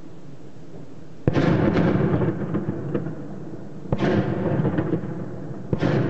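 Three heavy explosions from shelling, about a second and a half to two and a half seconds apart. Each is a sudden bang that rolls on for about a second, over a steady low background rumble.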